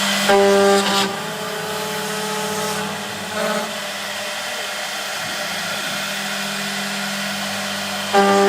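Four-spindle CNC router running and cutting wood, a steady whine at a level pitch. It grows louder and brighter twice, about half a second in for about a second and again near the end.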